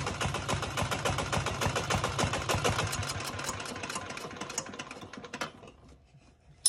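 Small turbocharged 168F single-cylinder air-cooled diesel idling with a rapid, even knock. It slows and dies away about five to six seconds in as it stops. A sharp click comes at the very end.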